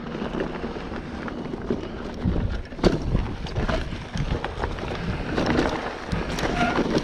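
Wind buffeting an action camera's microphone on a moving mountain bike, with the rumble of tyres on a dirt trail and scattered knocks and rattles from the bike over bumps; a sharp knock about three seconds in.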